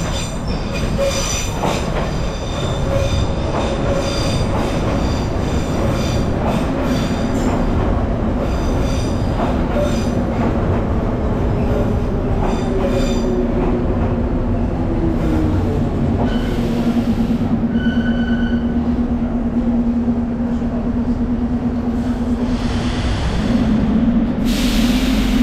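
Kyiv metro train of Metrowagonmash 81-717/714-type cars pulling into an open-air station: wheels squeal in high whistling tones, and a steady motor whine falls in pitch as the train slows, with brief bursts of air hiss. Near the end the sound changes to a rising motor whine as a train pulls away in an underground station.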